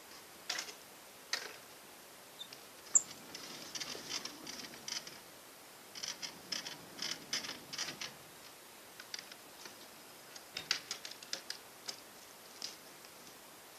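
Footsteps on gravel and a wooden barn door being handled and pulled open: scattered scuffs and clicks, with one sharp click about three seconds in.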